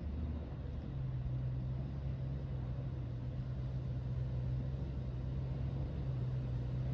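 4WD engine idling steadily, a low even hum.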